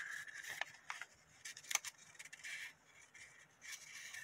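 Colored paper rustling and crackling faintly as it is rolled and pressed into a tight tube between the fingers, with scattered small clicks.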